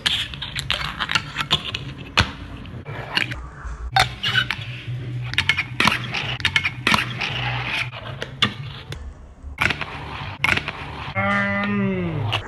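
Fingerboard being ridden: urethane wheels rolling on concrete with a low rumble, broken by many sharp clicks and clacks of the small deck popping, landing and hitting the obstacle. Near the end there is a short pitched sound that falls in pitch.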